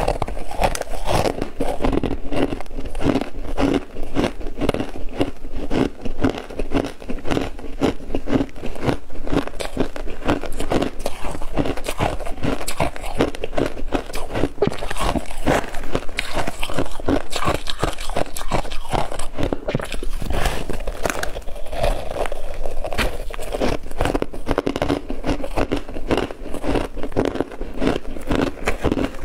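Biting and crunching of frost-covered ice chunks, a dense, steady run of crisp crackles and crunches.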